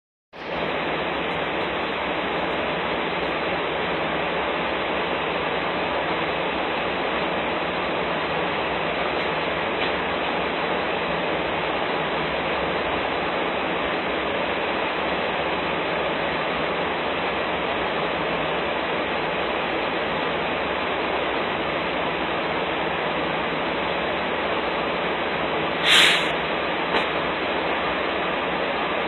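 Steady, even rushing noise with no clear pitch, with a single sharp knock near the end and a fainter one just after.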